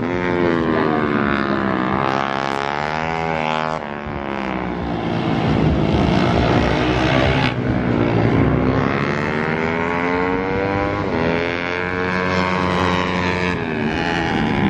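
Racing motorcycle engine revving hard as the bike laps the track, its pitch rising and falling several times with throttle and gear changes, with abrupt jumps about four seconds in and again past halfway.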